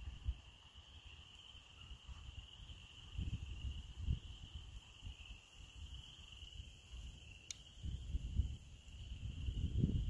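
A steady, high-pitched chorus of small calling animals in the background, with a few soft low rumbles and one sharp click about seven and a half seconds in.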